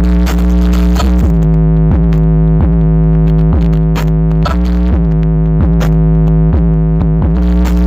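Electronic dance music played loud through large stacked outdoor sound-system speakers during a sound check. It has a deep sustained synth bass and chord under a steady drum beat of about two hits a second.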